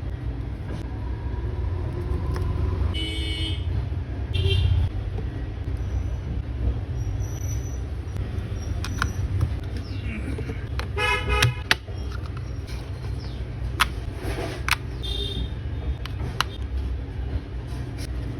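Road traffic with a steady low rumble, and vehicle horns tooting briefly several times, the longest and loudest about eleven seconds in. Scattered sharp clicks are heard among them.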